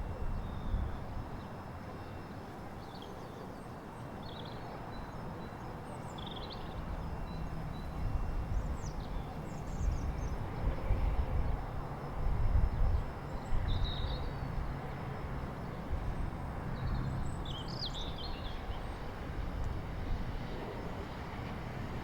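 Outdoor lineside ambience: a steady low rumble that swells a little partway through, with short high bird chirps now and then.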